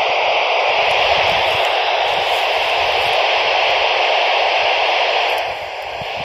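Steady static hiss from a handheld CB radio's speaker, cutting in abruptly as the last transmission ends and dropping a little in level near the end.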